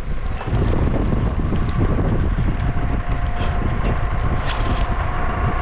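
Valmet 118 tractor's diesel engine running through its straight exhaust pipe, with wind buffeting the microphone; a faint steady whine joins about halfway through.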